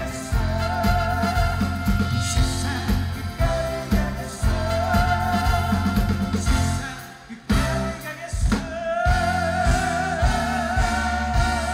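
Live pop band music: drums and bass keep a steady beat under a long, wavering sung melody, with a short break about seven seconds in before the band comes back in.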